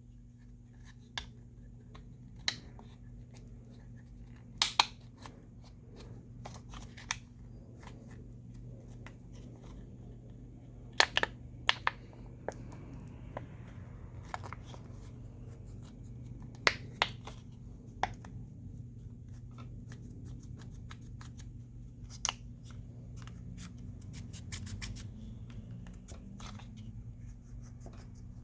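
Irregular sharp clicks and small scrapes of a thin card prying a phone battery up from its adhesive, some coming in quick pairs or clusters, over a steady low hum.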